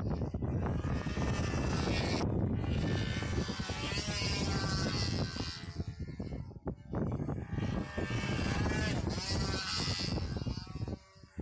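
Control-line stunt model airplane buzzing as it flies its circle. The pitch of the motor and propeller swells and falls as it works through the aerobatic manoeuvres, over a steady low rumble of wind on the microphone.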